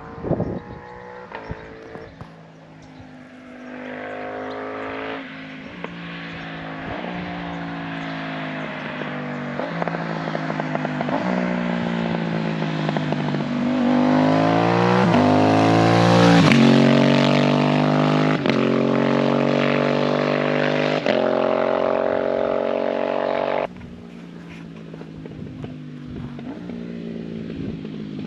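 Aprilia 660 parallel-twin motorcycle accelerating hard through the gears: the exhaust note climbs in pitch, drops at each upshift and climbs again, growing louder to a peak about two-thirds of the way in. It then cuts off abruptly to a quieter engine sound.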